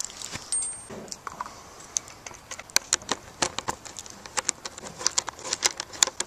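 Footsteps through overgrown weeds and scattered dry cut branches, with irregular crackles and sharp snaps of twigs, several a second.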